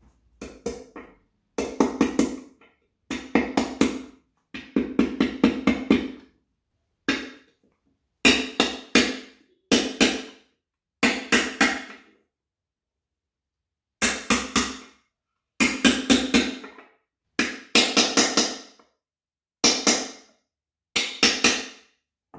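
Quick bursts of three to six hammer blows on a bearing driver, repeated again and again with short pauses, each blow a sharp knock: a new input shaft bearing being driven into the case of a Honda YS1 B-series transmission.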